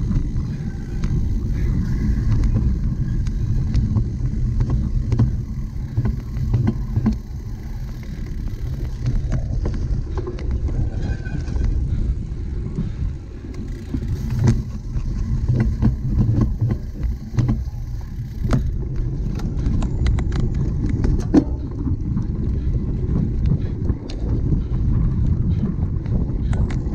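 Bicycle ridden over a rough cyclocross course, heard close up as a steady low rumble with many scattered rattles and knocks from the bike. A sharper knock comes about three quarters of the way through.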